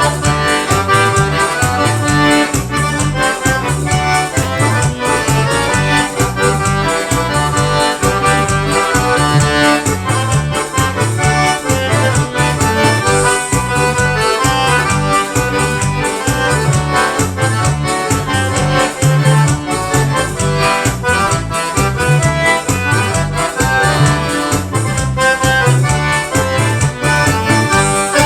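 Accordion playing a forró solo over band accompaniment with a steady, regular beat.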